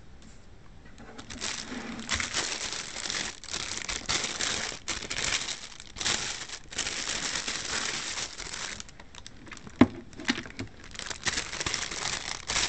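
Clear plastic bags crinkling and rustling as they are handled and pulled off a small robot vacuum and its charging cable, in long stretches with a short lull about three quarters through. A single sharp knock just before the crinkling resumes is the loudest sound.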